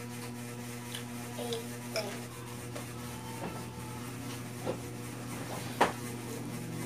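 Eating noodles with a fork: soft chewing and mouth sounds with light clicks of the fork, over a steady low electrical hum. A sharp click a little before the end is the loudest sound.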